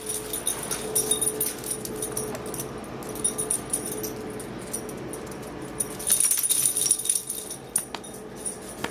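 A dog moving about, the metal tags on its collar jingling in small clinks throughout, with a louder spell of jingling about six seconds in.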